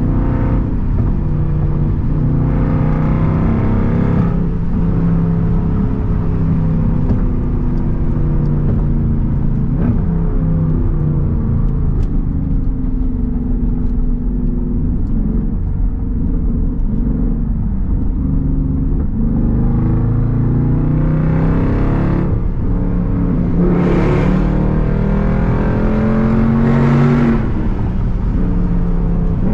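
Straight-piped SRT Jeep V8 exhaust, heard from inside the cabin, running under load at highway speed. The revs rise and fall with the throttle. Toward the end come a few harder pulls, where the engine note climbs, gets louder and drops back.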